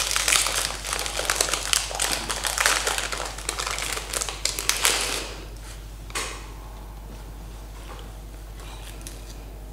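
Plastic wrapper of a TUC cracker packet being crinkled and torn open by hand, a dense run of crackling that stops about five seconds in.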